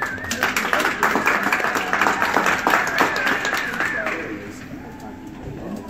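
A small audience clapping and cheering, with a high held cheer over the claps; the applause dies away about four seconds in.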